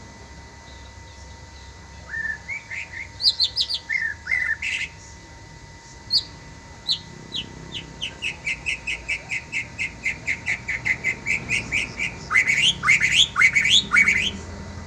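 A murai songbird singing: varied whistled phrases, then a long fast run of repeated notes at about five a second, ending in a few rising, sweeping whistles.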